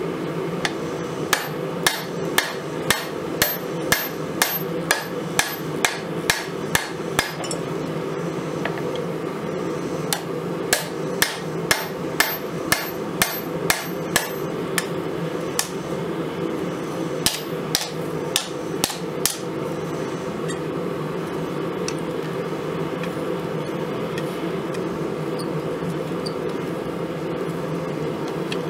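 Hand hammer striking a red-hot pattern-welded steel knife blank on an anvil: sharp metallic blows about two a second in two runs, then a few scattered blows, stopping about twenty seconds in. A steady low hum runs underneath.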